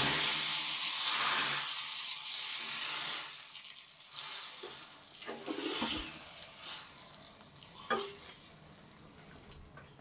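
Hot tadka of oil, garlic, dried red chillies, cumin, mustard seeds and hing sizzling as it hits cooked tur dal with spinach; the sizzle is loud at first and dies away over the first few seconds. Then the tadka pan is stirred through the dal, with a few sharp clinks against the pot near the end.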